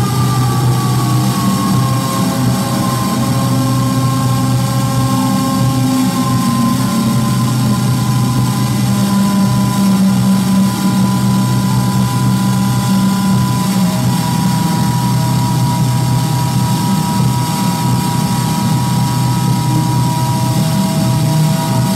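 Loud electronic noise drone from synthesizer and effects-pedal gear: a dense low rumble with steady high tones over it, one tone sliding down in pitch over the first few seconds and then holding, and another tone coming in about two-thirds of the way through.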